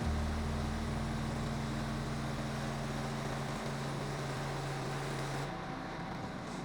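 Small gas engine of a portable bandsaw sawmill running steadily, with a hiss above it that drops away about five and a half seconds in.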